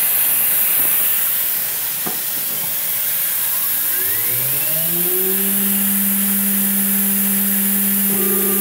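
Compressed air hissing from the mist-coolant nozzle. About three and a half seconds in, the mill's VFD-driven spindle spins up with a rising whine and settles into a steady hum at 12,000 RPM, with the end mill running unloaded. A higher tone joins near the end.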